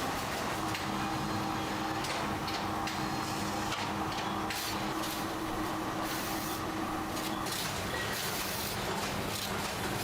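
Steady machine noise in a workshop: a constant hum with short hissing, rattling surges every second or so.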